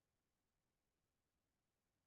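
Near silence: only a faint, steady noise floor.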